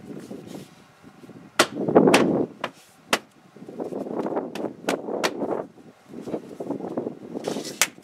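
Plastic seat-belt pillar trim cover being pushed and snapped back onto the car's door pillar: a series of sharp clicks and knocks, with plastic rubbing and scraping between them and the loudest knock about two seconds in.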